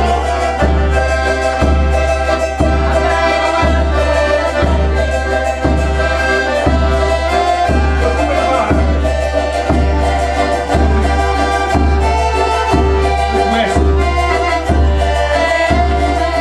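Accordion playing a traditional Portuguese folk tune of the janeiras kind, over a steady low beat about once a second.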